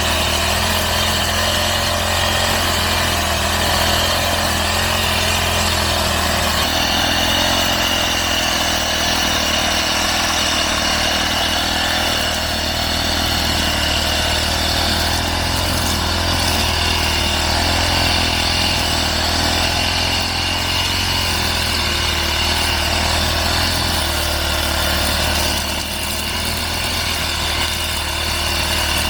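Motorised brush cutter (grass trimmer) engine running steadily while cutting grass, its pitch shifting slightly about a quarter of the way in and dipping briefly near the end.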